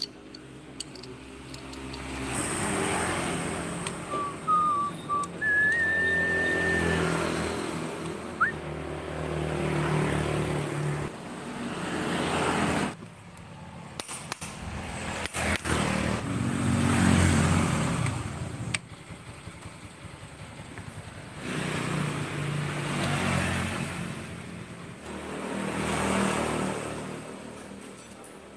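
Road traffic passing one vehicle after another, each engine sound swelling and fading over a few seconds. A few sharp clicks come around the middle.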